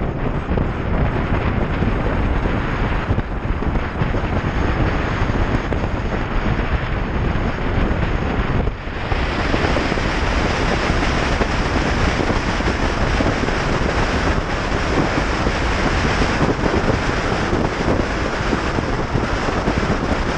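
Heavy wind noise on the microphone of a motorcycle moving at road speed: a loud, steady rush that covers any engine sound, with a brief dip about nine seconds in.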